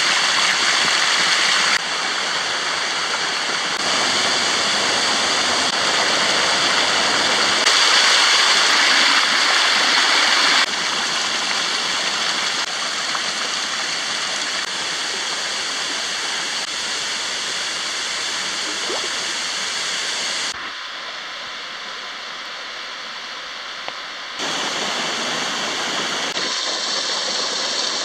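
Shallow water rushing and splashing down rough limestone cascades, a steady full hiss whose loudness steps abruptly up or down every few seconds.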